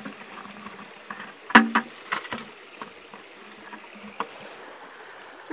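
A few knocks and clunks from a red plastic bucket being carried by its wire handle, the loudest about a second and a half in, over the steady rush of creek water.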